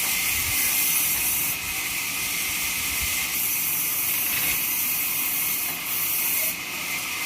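Horizontal trolley bandsaw cutting a neem log: a steady high hiss of the blade in the wood, with no clear rhythm.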